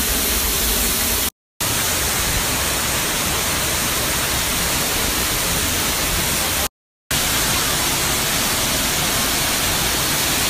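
Waterfall close by: falling water making a loud, steady rush. It cuts out twice for a moment, about a second and a half in and near seven seconds.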